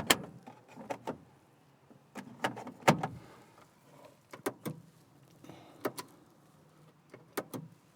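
Plastic lids and latches of a Nissan Titan's overhead console being opened and snapped shut, giving a series of sharp clicks, some in quick pairs, spread irregularly over several seconds.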